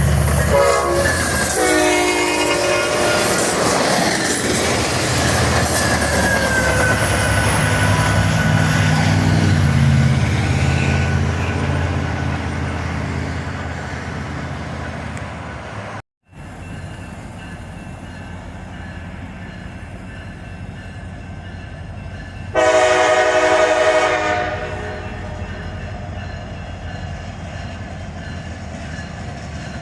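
A train's horn sounds near the start over the loud rumble and rail noise of a passing train, which slowly fades. After an abrupt cut, the train keeps rumbling and the horn gives one short blast about two-thirds of the way through.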